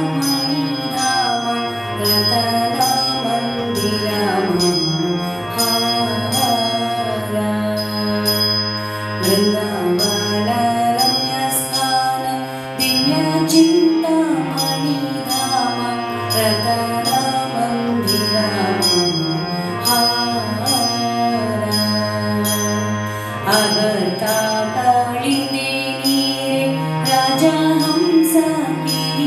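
Devotional Vaishnava bhajan music: a flowing melody over a steady pitched backing, with small hand cymbals struck in a regular rhythm.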